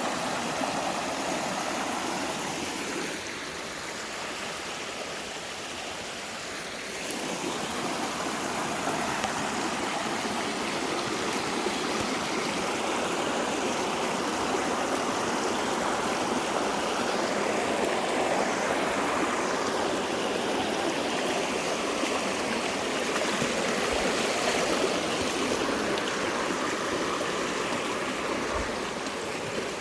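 River water rushing and splashing over rocks as a steady rush, dipping somewhat quieter a few seconds in before swelling back up.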